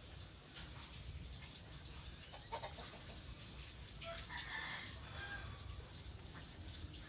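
Faint rooster crowing about four seconds in.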